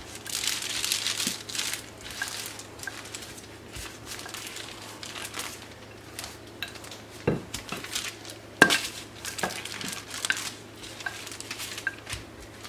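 Wooden rolling pin rolled over dough between sheets of parchment paper: the paper rustles and crinkles under the pin, with small clicks and two sharp knocks in the second half.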